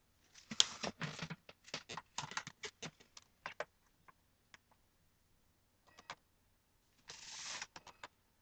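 Sharp clicks, taps and rattles of small screws, a screwdriver and plastic laptop case parts being handled, dense for the first few seconds, then a few scattered clicks and a brief scraping slide about seven seconds in.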